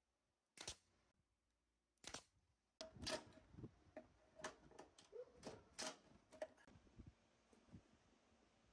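Pneumatic nail gun firing two nails into cedar boards, each a single sharp crack, about a second and a half apart. Then a quicker, irregular run of clicks and knocks for a few seconds.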